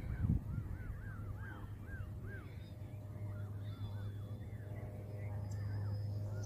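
Canada geese calling softly on the water, a quick run of short, repeated calls about two or three a second, over a steady low hum. A low bump sounds right at the start.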